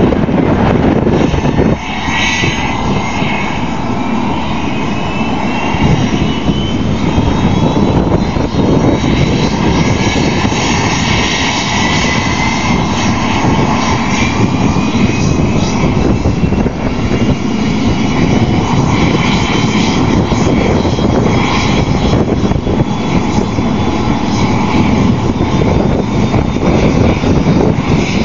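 Air ambulance engines running loud and close, with whines rising slowly in pitch over the steady roar.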